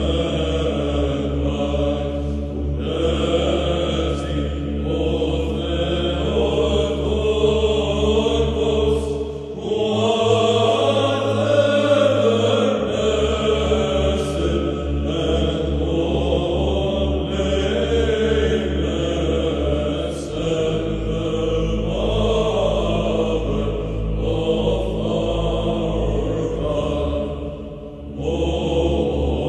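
Orthodox chanted hymn to the Theotokos, a melodic vocal line over a sustained low drone. The drone shifts pitch about ten seconds in and again about twenty seconds in.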